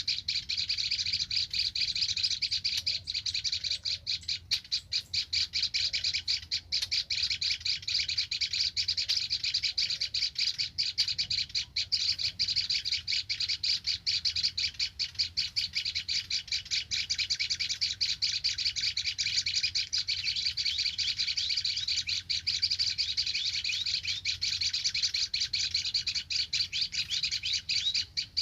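Reed warbler (kerak basi) singing a continuous fast, chattering song of rapid scratchy notes that does not pause.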